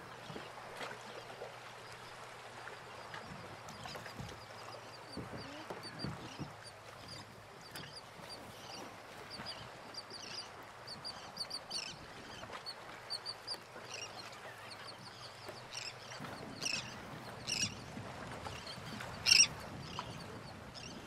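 Dinghy rigging being handled: rope running through cleats and deck fittings with scattered light clicks and rustles, and one louder clack near the end. Waterfowl call now and then.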